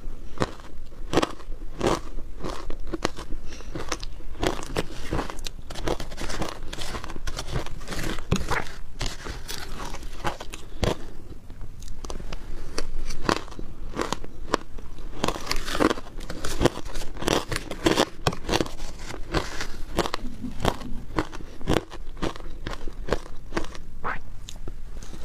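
Shaved ice topped with matcha being bitten and chewed mouthful after mouthful close to a clip-on microphone: a dense, irregular run of crisp crunches and crackles.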